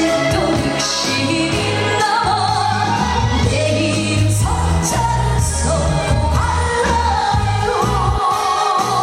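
A trot song performed live: a solo voice sings the melody over music accompaniment with a steady bass, holding a long wavering note near the end.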